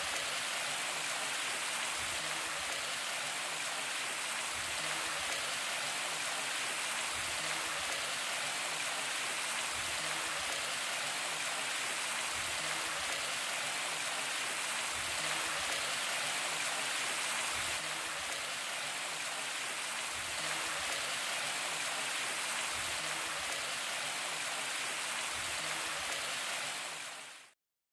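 Waterfall spilling down a rock face: a steady rush of falling water that fades out just before the end.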